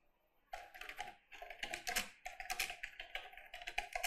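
Typing on a computer keyboard: a fast, uneven run of key clicks starting about half a second in.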